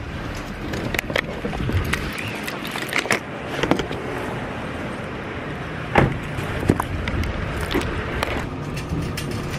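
A person getting out of a parked car: scattered clicks and knocks from the door and from handling the camera over a steady background noise, with one louder thump about six seconds in.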